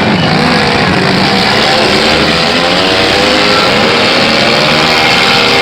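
Several demolition derby cars' engines running and revving at once, a loud, dense mix of engine notes rising and falling together.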